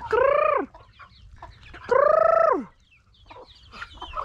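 Chickens calling: two loud calls, each under a second long, that hold a pitch and then drop off, one right at the start and one about two seconds in.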